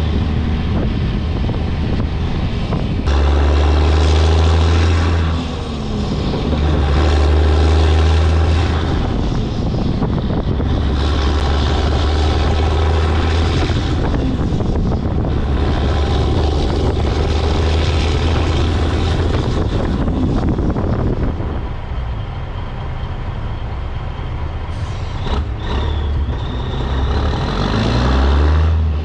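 Peterbilt 362 cabover truck's diesel engine running under way, heard loud from the cab. Its revs dip and climb again several times.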